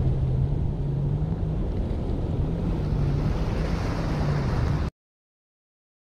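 Sea surf washing over coastal rocks with wind buffeting the microphone, under a low steady drone. The sound cuts off abruptly about five seconds in.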